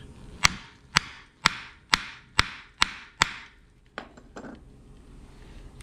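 Hammer tapping a grommet kit's hole punch to punch a hole through shade cloth over a wooden board: seven sharp strikes about two a second, each with a short ring, then a few faint knocks.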